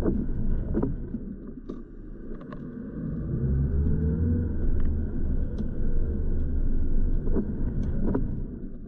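Car cabin road noise: the engine and tyres rumble on a wet road, and the engine note rises as the car speeds up about three seconds in. A few light knocks sound, and a windscreen wiper sweeps near the end.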